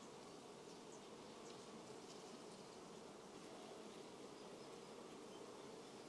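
Honey bees buzzing: a faint, steady hum of many bees.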